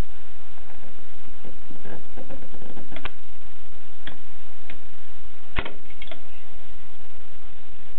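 Groma Kolibri manual portable typewriter's mechanism clacking: a handful of irregular, spaced-out keystroke clicks, a small cluster then single sharp strikes, the loudest a little past the middle.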